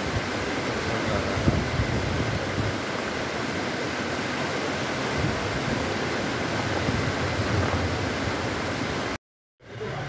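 Steady rushing of a rocky mountain river running with white water, with some uneven low rumble underneath. It cuts off abruptly near the end.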